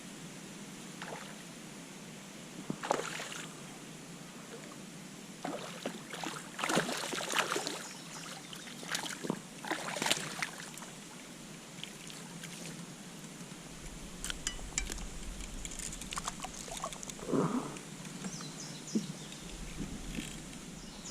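Water splashing and sloshing around a kayak in irregular bursts, with a few light clicks and knocks in the second half.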